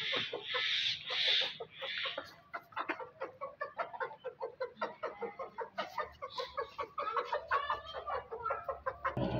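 Domestic hen clucking in a rapid run of short clucks, several a second, with a few short noisy bursts in the first two seconds.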